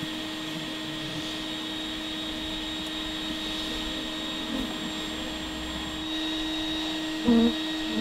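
Bee vacuum's motor running steadily, drawing bees off the comb through its hose: a constant hum with a thin high whine. A short louder sound breaks in near the end.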